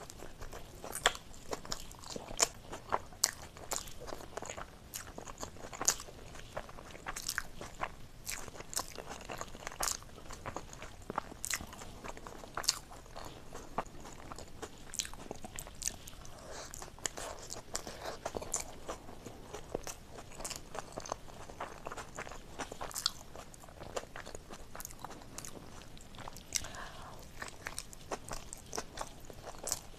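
Close-miked chewing and wet mouth sounds of a person eating momo dumplings in sticky chili sauce, with many sharp clicks at irregular intervals.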